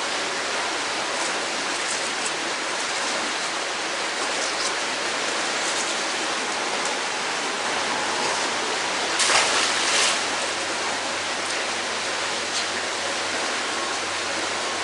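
Steady rush of flowing water, with a short splash about nine seconds in as a thrown fishing magnet lands in the water.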